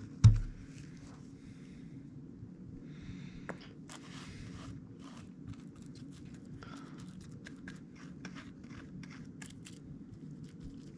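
A single dull thump just after the start, then faint scattered crackling, clicking and scraping of a broken piece of foam being handled and pressed back into the foam core of a wing surface during a glue repair.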